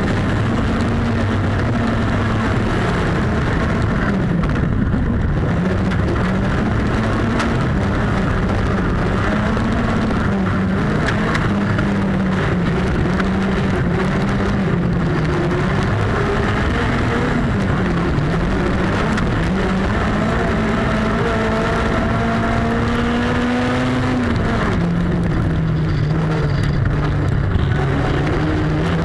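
Autocross car's engine heard from inside the stripped cabin, revved hard up and down as it is raced through corners. About twenty seconds in, the pitch climbs steadily for around four seconds, then drops at a gearshift.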